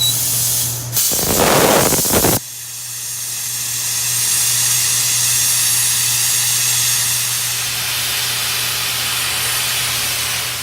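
Plasma cutter cutting through a piece of steel: a short burst of air hiss as the torch is triggered, then about a second and a half of loud crackling arc that cuts off sharply when the cut ends. A long steady hiss of air follows, the torch's post-flow cooling air, over a low electrical hum, and it stops near the end.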